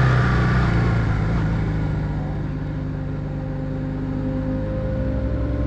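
Motorcycle engine running under way, steady, easing off a little midway and then picking up again toward the end.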